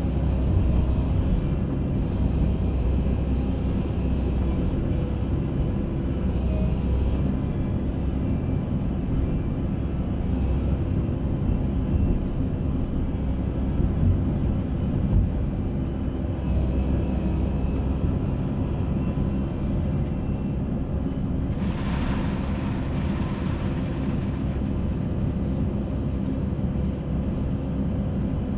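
Concrete mixer running with a steady low mechanical rumble and a faint steady hum. About two-thirds of the way through there is a brief rushing, hissing noise lasting about two seconds.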